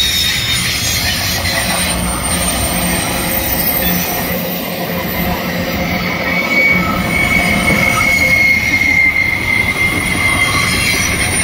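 Double-stack intermodal freight cars rolling past close by: a loud, steady rumble of wheels on rail with a high wheel squeal, strongest in the second half.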